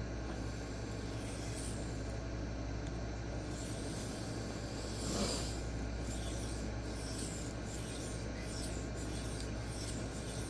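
Ozark Trail D2 steel knife blade stroked freehand across a 1x6 inch sharpening stone, a steady rasping scrape with light, regular passes in the second half, knocking the burr back off the edge. A low steady hum runs underneath.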